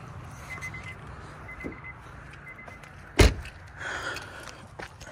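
Honda Pilot's door-open warning chime beeping about once a second, then the driver's door slammed shut about three seconds in.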